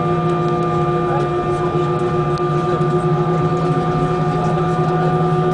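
Airbus A320 cabin noise in the climb after takeoff: the jet engines running steadily at high power, a loud even rush with a hum of several steady tones.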